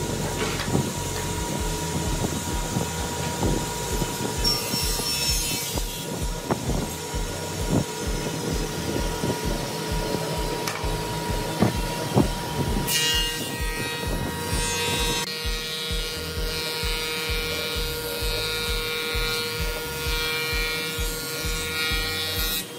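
Industrial thickness planer running as boards are fed through it, the cutterhead planing the wood, with a few sharp knocks of the boards in the first half. Background music with a steady low beat plays underneath.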